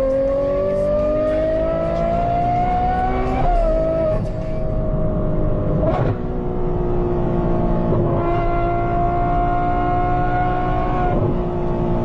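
Car engine under load, its pitch climbing steadily for about three seconds, then dropping sharply at a gear change. It then holds fairly steady revs, with another short drop about six seconds in and another near the end.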